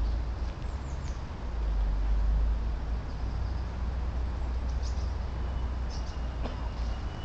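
A few brief bird chirps over a steady, uneven low rumble, with a faint thin high tone joining about five seconds in.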